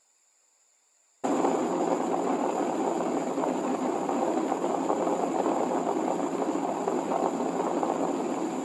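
Steady static hiss like a detuned TV or radio. It starts suddenly after about a second of dead silence, and a faint high steady whine sits above it. Near the end it drops away to a much fainter hiss.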